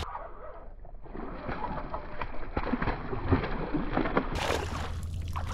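Hooked bass fighting at the surface beside a kayak, a run of irregular small splashes and slaps of water.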